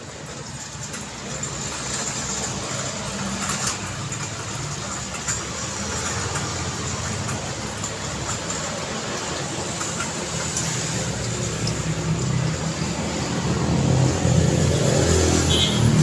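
Road traffic: vehicle engines and tyre noise passing steadily. An engine grows louder in the last few seconds as a vehicle comes close.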